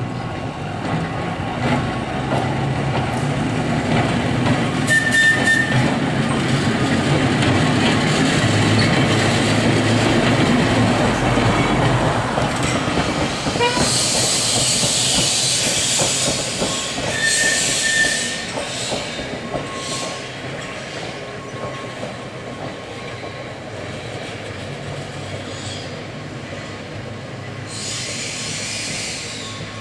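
Manx Electric Railway electric tram car and trailer running along the track: the hum of the motors and the rumble and clatter of steel wheels on rail build as it approaches and are loudest as it passes close, with a brighter hissing rush about halfway through, then fade away as it moves off.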